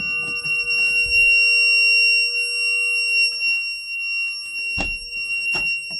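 Fire alarm system sounding in alarm: a steady high-pitched tone with a weaker lower tone beneath it. There are some low thumps in the first second or so and two sharp knocks near the end.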